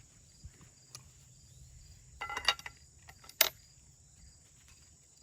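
Metal parts of a 12 gauge single-shot break-action shotgun clicking and clattering as it is reassembled: a short run of ringing clicks about two seconds in, then one sharp snap about a second later as the fore-end latches back onto the barrel. Crickets chirp steadily in the background.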